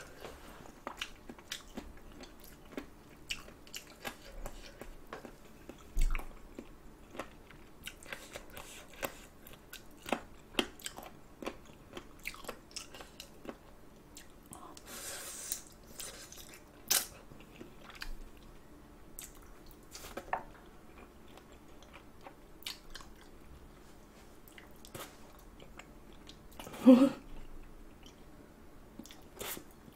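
Close-miked chewing and biting of spicy braised chicken feet: wet smacks and many small sharp clicks as skin and cartilage are bitten off the bones. There is a short hissing stretch about halfway, and a single louder brief sound about three seconds before the end.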